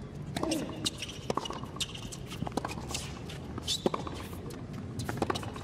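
Tennis serve and rally on a hard court: a series of sharp knocks, about one a second, from racket strings striking the ball and the ball bouncing, with a few short sneaker squeaks in between.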